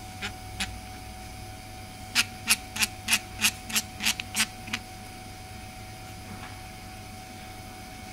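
Shockwave therapy handpiece being unscrewed by hand: two light clicks, then a run of about ten sharp clicks over two and a half seconds as the threaded head is twisted, over a steady hum.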